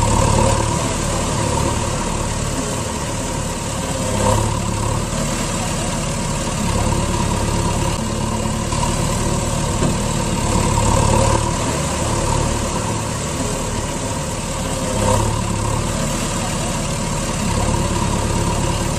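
Truck engine running at idle: a steady drone that swells slightly every few seconds.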